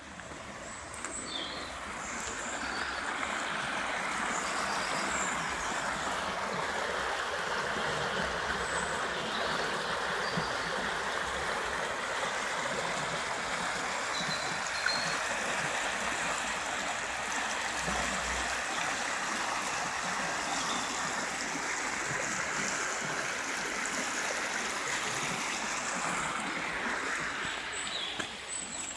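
Water rushing steadily over a small stone weir and through a stone-walled channel in a stream. It grows louder over the first few seconds and drops off near the end.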